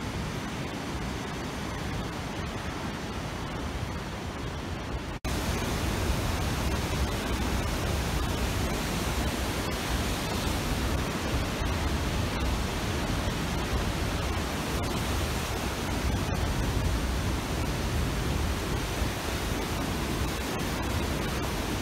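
Steady rushing noise with no pitch or rhythm, spread evenly from deep rumble to hiss; it breaks off sharply about five seconds in and resumes a little louder and heavier in the low end.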